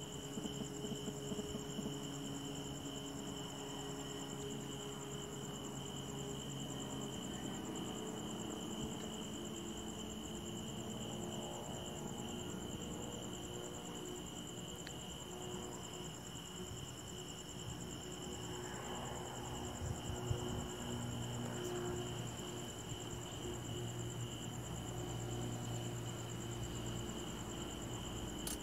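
Crickets chirping steadily in two high-pitched bands, with the faint low hum of an approaching diesel train underneath.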